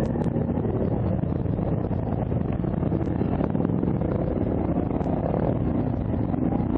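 ATV engine running, with wind rumbling on the microphone.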